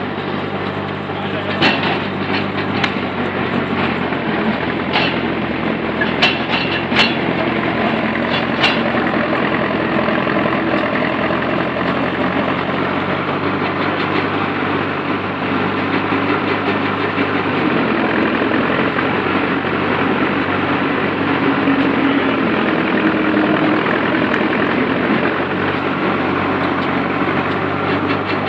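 Vintage excavator's engine running steadily, with a few sharp metallic clanks in the first several seconds. About two-thirds of the way through, the engine note starts to change as the machine works, slewing its cab and raising its boom.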